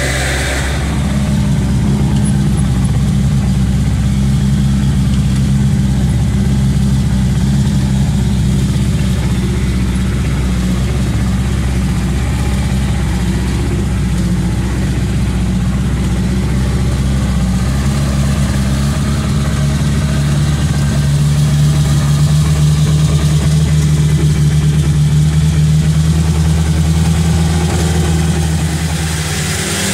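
Small bus engine running steadily as the bus drives along, heard from inside the cabin; the engine note grows somewhat louder about two-thirds of the way through.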